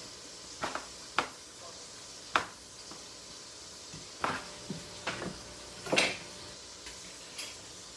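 Irregular knocks and clatters in a stockpot as pieces of raw pork butt go into hot garlic and sesame oil, over a faint steady sizzle.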